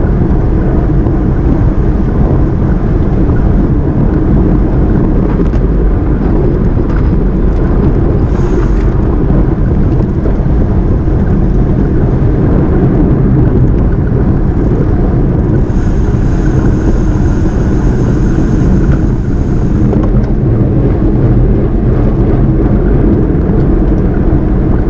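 Steady rush of wind over a bike-mounted action camera's microphone as a road bicycle races at speed, mixed with tyre noise on the road. A thin high whine joins in for about four seconds past the middle.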